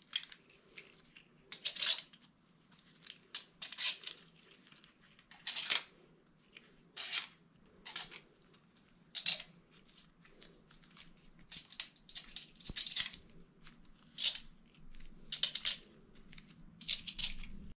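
Short, irregular clicks and scrapes of small metal parts as aluminum spacers are slid over the crank strap studs and nuts are threaded on by hand, finger tight.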